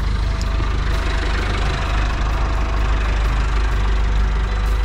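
Renault 70-34 tractor's Perkins diesel engine running steadily at low revs, its sound mostly a deep, even rumble.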